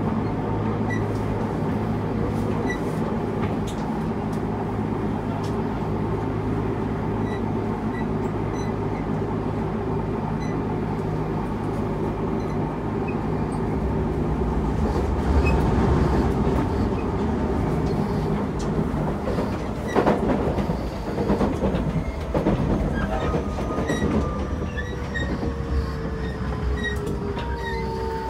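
Interior running noise of an early Toei 6300-series electric train with Hitachi GTO-VVVF drive: a steady rumble of wheels on rail, with a few rail-joint clicks partway through. Near the end the drive's whine slides down in pitch as the train slows.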